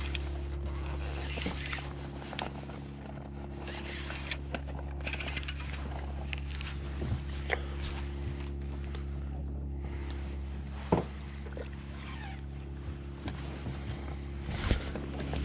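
A small motor hums steadily at one unchanging pitch, with scattered light clicks and knocks over it; the sharpest knock comes about eleven seconds in, and another near the end.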